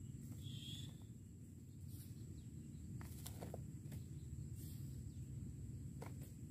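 Faint outdoor background noise with a steady low rumble, a brief high chirp about half a second in, and a few faint light clicks.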